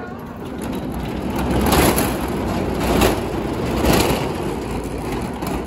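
The black safety fence around a railway turntable being moved open, a rattling, scraping rumble that swells and surges three times about a second apart before dying away.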